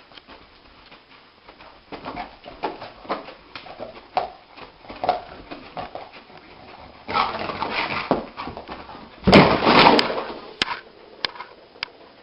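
A dog whimpering in a run of short separate sounds, about two a second. Near the end come two longer, louder rough sounds.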